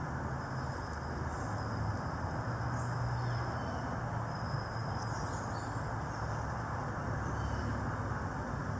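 Outdoor background ambience: a steady hiss with a low hum underneath and a few faint, short high chirps.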